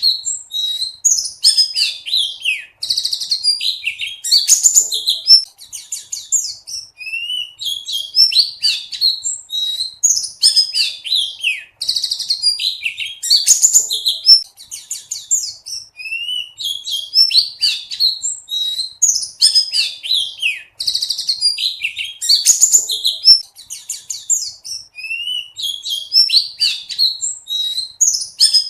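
Buxtoni white-eye (pleci) singing a fast, loud, jumbled song of high chirps, slurred whistles and trills, the same run of phrases repeating about every nine seconds.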